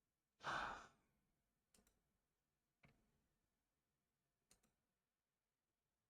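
A person lets out one short sigh, followed by a few faint, sharp clicks spaced a second or so apart.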